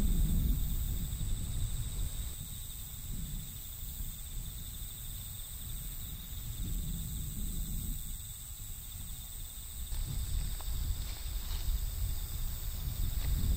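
Forest ambience: steady, high-pitched trilling of insects, with a low rumble of wind on the microphone that rises and falls.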